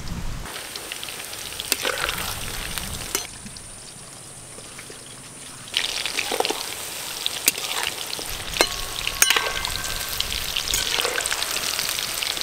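Chicken pakoras deep-frying in hot oil in an aluminium kadai, the oil bubbling and sizzling steadily, with sharp clicks of a metal spatula against the pan. The sizzle drops quieter for a few seconds about three seconds in, then comes back louder.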